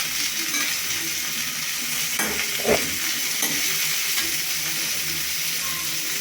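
Pointed gourd (parwal) pieces sizzling as they fry in oil in a pan, a steady hiss, with a spatula stirring and a single knock against the pan a little under three seconds in.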